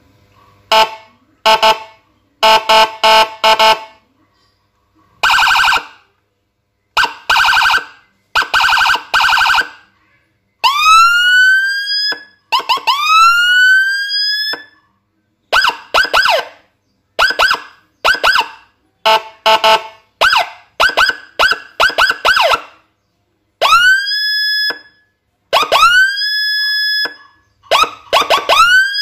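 Electronic police siren module with a custom chip copying Whelen HHS3200 tones, played through a siren speaker and cycling through its patterns. It opens with clusters of short, sharp blasts, then gives rising whoops about ten seconds in. From about two-thirds of the way it sounds quick rising chirps, some of them held steady at the top.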